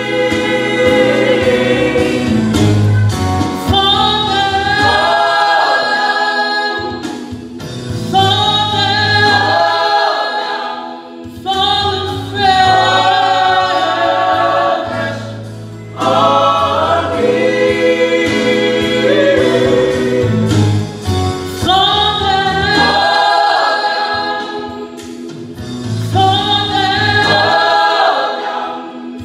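Mixed choir of men and women singing a church song together in parts, in long phrases with brief pauses for breath every few seconds.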